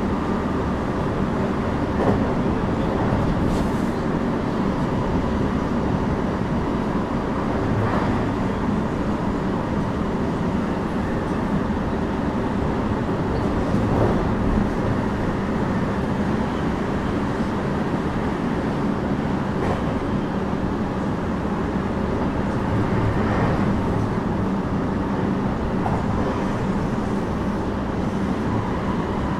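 Cabin running sound of a JR West 321 series electric train, a Toshiba IGBT-equipped car, cruising at a steady speed: a steady rumble of wheels and running gear on the rails, with a few faint clicks now and then.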